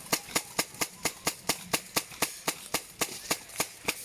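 Airsoft gun firing single shots in quick, steady succession, about four sharp cracks a second.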